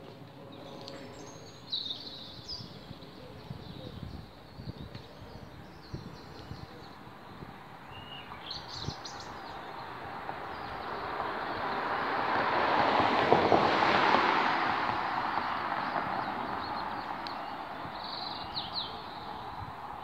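A road vehicle passes by: its tyre and engine noise swells slowly to a peak a little past the middle and fades away. Small birds chirp briefly a few times.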